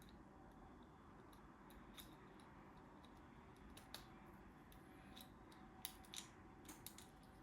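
Faint, scattered small clicks and taps of the brake light switch's contact clips and spring being handled and pressed into the plastic switch housing by hand.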